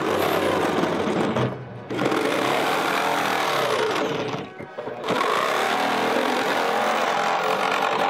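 Electric jigsaw cutting through the plastic lid of an icebox, its blade chattering steadily. It stops briefly twice, about a second and a half in and again around four and a half seconds.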